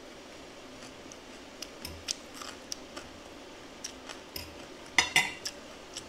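Metal fork tapping and scraping against a ceramic plate while scooping fried rice: scattered light clinks, with the loudest cluster about five seconds in.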